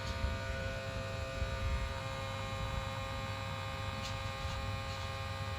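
A steady electrical hum with many evenly spaced overtones, unchanging throughout.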